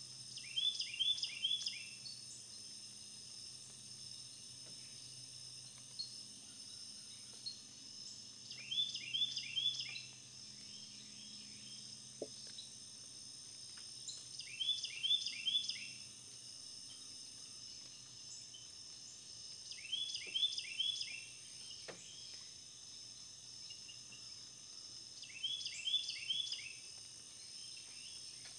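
Background nature ambience: a short chirping call of three or four quick notes, repeated about every six seconds, over a steady high drone.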